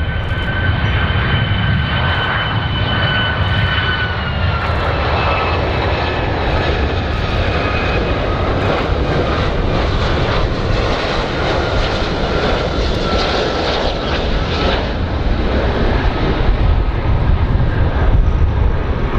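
Boeing 757 jet engines on landing approach: a loud, steady jet rumble with a high engine whine that drops slightly in pitch about four seconds in.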